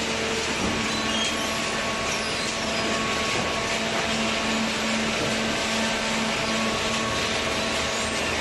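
Hydraulic cardboard baler running: a steady mechanical noise with a constant low hum from its motor and pump.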